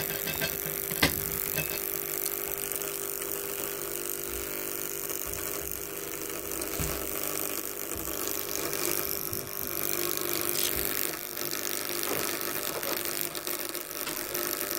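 Steady electrical hum with a crackly hiss from a small loudspeaker's bare voice coil fed mains current through a small transformer, the coil being driven until it burns out. The hum fades about halfway through.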